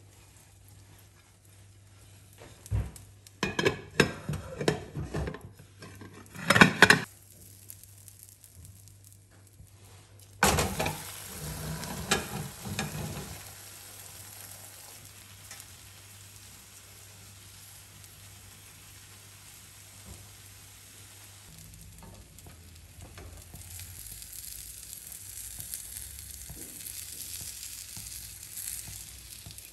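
A run of knocks and clatter, then, from about ten seconds in, the steady sizzle of a cabbage-and-egg frittata frying in oil in a non-stick pan. The sizzle grows a little louder in the last few seconds.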